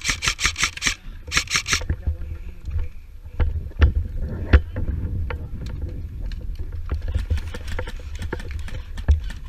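Airsoft gun firing on full auto in rapid, even bursts of about nine or ten shots a second: one burst stops about a second in and a short second burst follows. After that come scattered sharp clicks and knocks over a low rumble of movement.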